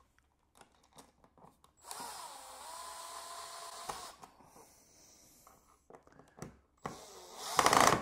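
Power drill with a driver bit running for about two seconds, a steady whine, as it drives an outlet's mounting screw into a plastic junction box. A few light clicks follow, then a second, louder run of the drill near the end as it starts on the other screw.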